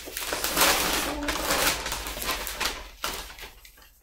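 Rustling and crinkling of folded clothes and their packaging being handled and lifted out of a box, loudest about a second in and dying away near the end.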